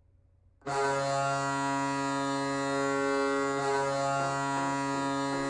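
Toronto Maple Leafs goal horn sounding one long, steady blast that starts less than a second in; a good, powerful horn.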